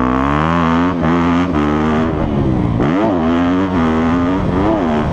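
Yamaha YZ250F's four-stroke single-cylinder engine under way on a dirt track, heard from the rider's helmet. The revs climb through the first second, then rise and fall as the throttle is worked, with a quick blip up and down about three seconds in and again near the end.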